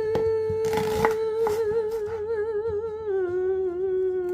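A woman humming one long held note that wavers in the middle and steps down to a lower note about three seconds in. A kitchen knife knocks on the cutting board three times early on as she chops onions.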